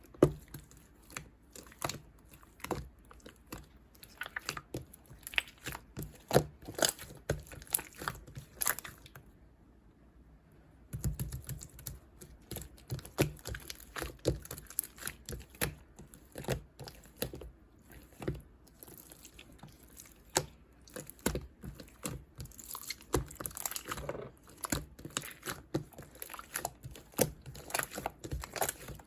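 Clear slime being squished and pressed by hand, making a rapid, irregular run of sticky clicks and pops, with a pause of about two seconds a third of the way in.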